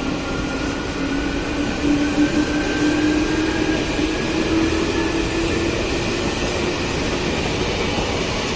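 Electric commuter train moving off along the station track, its traction motors giving a whine that rises slowly in pitch and fades out near the end, over the steady rumble of the wheels.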